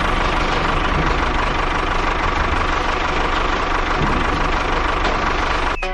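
A motor running steadily with a constant whine, cutting off abruptly near the end.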